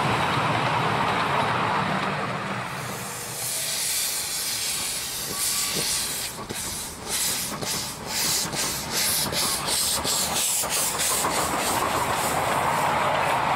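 Miniature live-steam locomotive hissing steam. From about six seconds in, the hiss breaks into even exhaust chuffs at roughly three a second, then gives way to a steady rushing noise near the end.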